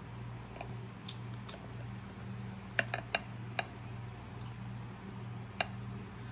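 Chopsticks clicking against the ceramic bowl and the glass sauce dish while eating ramen: a few sharp clicks, several close together about three seconds in and one more near the end, over a steady low hum.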